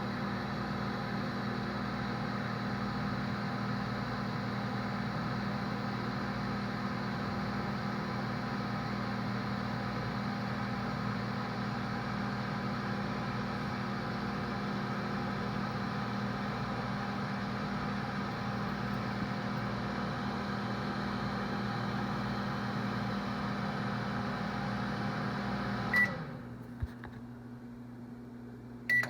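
Microwave oven running with a steady hum, which stops about 26 seconds in with a short beep; a faint click follows, then another beep near the end.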